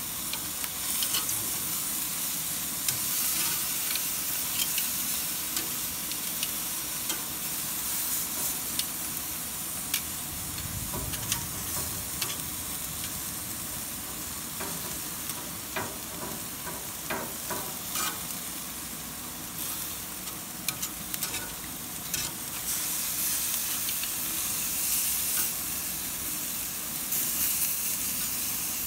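Chicken pieces sizzling on a hot gas grill, a steady hiss, with scattered sharp clicks of metal tongs against the grill grates as the pieces are turned.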